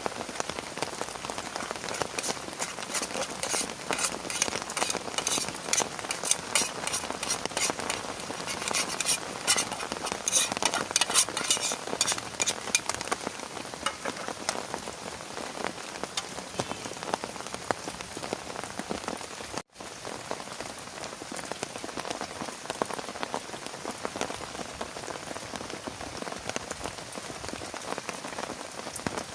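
Heavy rain falling, a dense spatter of drop impacts that is busiest in the first half and eases a little later, with a brief break about two-thirds of the way in.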